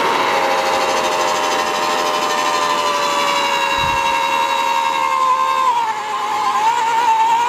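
AEG 36 V (twin 18 V battery) post hole borer with a 100 mm auger, running at top speed as it bores into the ground. Its motor whine sinks slowly in pitch, drops lower about five seconds in and then wavers, the motor slowing as the load in the soil grows.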